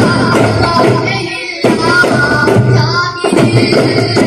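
Daff muttu: a group of boys singing together while beating daf frame drums in a steady rhythm. The drums and voices drop away briefly about a second and a half in, then come back together sharply.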